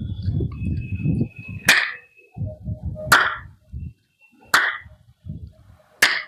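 Four loud, sharp tongue pops made by pressing the tongue against the roof of the mouth and snapping it away, which pulls air in fast. They come about every one and a half seconds and sound like stone or wood knocking.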